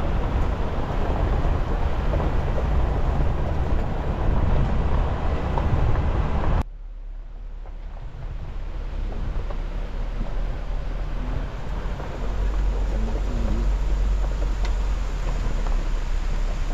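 Steady road and wind noise from a Toyota Hilux driving a gravel track, heard from the vehicle. About six and a half seconds in it cuts off abruptly to a much quieter outdoor sound of low wind rumble on the microphone, which grows stronger in the last few seconds.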